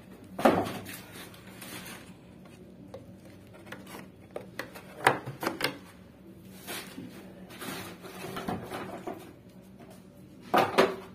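Clicks and knocks of hard plastic parts being handled and pushed together as a drain-pump filter is fitted into the drain line, a few sharp knocks about half a second in, around five seconds in and near the end, over a low steady hum.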